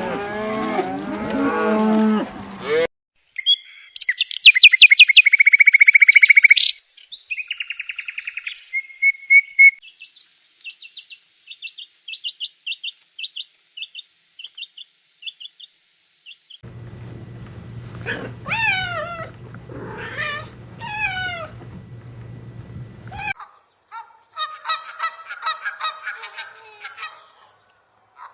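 A cow mooing, then a string of separate farm-bird calls: a loud repeated high call, a run of short chirps, then falling whistled calls over a low hum.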